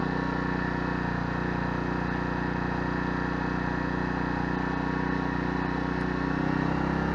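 Sportsman 1000-watt inverter generator's small 40 cc four-stroke engine running steadily. It has just been switched back into economy mode and settles to a slightly lower speed about a second in.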